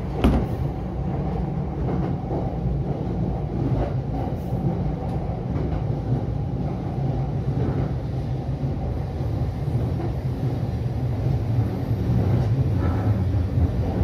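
JR E233-series electric train running, heard from inside the cab: a steady low rumble of wheels on rail with a few sharp clicks as it passes over joints and pointwork, a little louder near the end.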